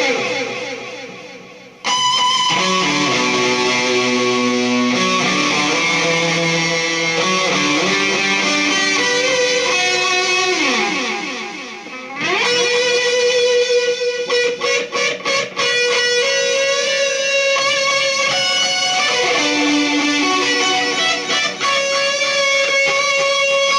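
Distorted electric guitar solo played through an analog distortion and a digital delay into a Peavey JSX tube amp, on a Dean VMNTX with Seymour Duncan SH-8 Invader pickups. It plays sustained melodic lead lines with bends and slides, fades out near the start, and comes back in about two seconds later. A run of short, choppy notes comes about halfway through; the rig still gives wild highs, weak lows and a bit too much feedback on the delay.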